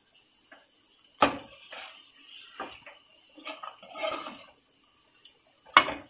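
Steel slotted spoon stirring a thick potato-and-paneer mixture in a metal pot: scraping against the pot with two sharp metallic clinks, one about a second in and a louder one near the end.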